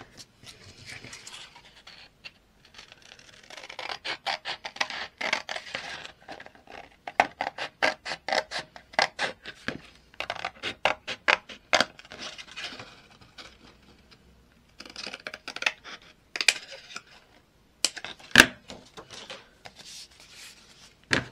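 Scissors snipping through paper and card: a run of quick cuts, about three a second in the middle, with scratchy paper handling between and one sharp click near the end.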